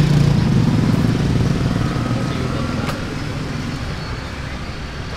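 Motorbike engine passing close by, rising in pitch as it pulls away and fading over the first few seconds, leaving a steady hum of street traffic.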